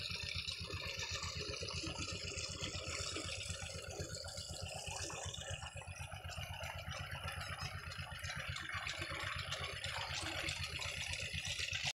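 An engine running steadily with a fast, even low chugging beat, under a steady high hiss.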